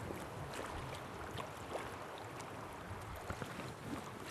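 Steady rush of river water around a drift boat, with a few light knocks and clicks.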